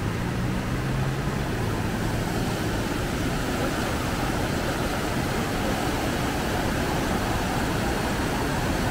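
Floodwater of a stream swollen by heavy rain, rushing steadily as an even, unbroken noise, with a low hum in the first two seconds.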